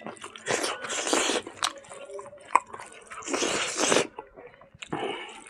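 Close-miked eating: a man chewing a mouthful of cooked silkworms with rice, with wet crunching and smacking in several bursts and sharp clicks between them, as his fingers scoop more food from the bowl.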